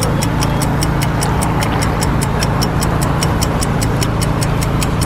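Rapid, even ticking, several ticks a second, like a clock-ticking suspense effect, over a steady low hum.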